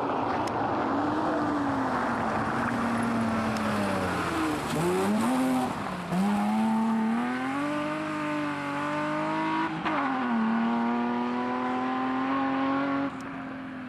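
BMW E30 rally car's engine at full effort on a special stage. Its note falls as it brakes and changes down about five seconds in, then rises through the gears as it accelerates away, with a gear change about ten seconds in.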